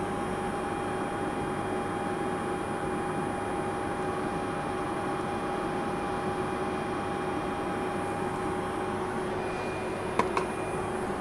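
IBM z890 mainframe's cooling fans running with a steady rushing noise and two steady hum tones, one low and one higher. A short click sounds near the end.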